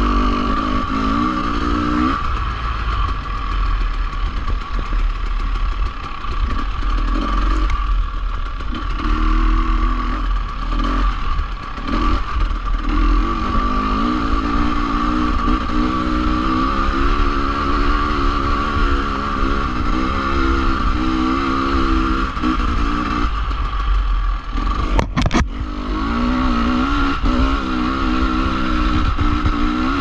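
Dirt bike engine on a trail ride, its pitch rising and falling as the throttle is opened and shut, dropping away briefly several times, under a steady low rumble. A single sharp knock comes late on.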